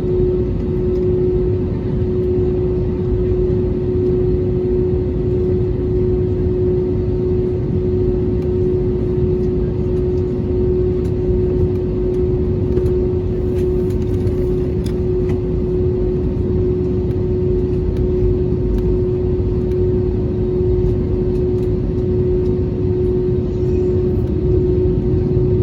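Airbus A320neo cabin noise heard from inside the cabin while the airliner is on the ground with its engines running: a steady low rumble with a constant hum tone that does not rise or fall.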